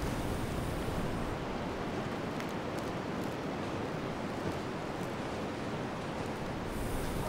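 Wind blowing steadily, a dense rushing noise with a brighter hiss in the first second and again near the end.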